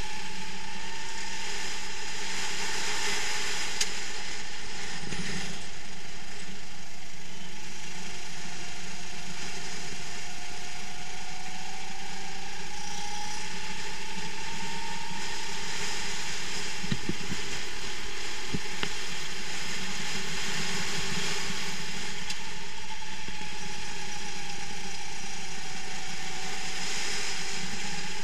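Racing kart heard from onboard at speed: its engine and chain drive running with a steady mechanical rattle, the engine pitch rising and falling several times as it accelerates and slows through the corners. A couple of sharp knocks a little past the middle.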